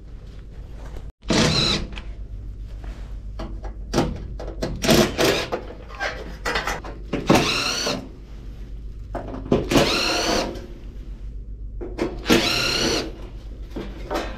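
Cordless drill-driver running in short bursts of motor whine, about five in all, backing screws out of an espresso machine's stainless-steel frame during disassembly, with handling clatter between the bursts.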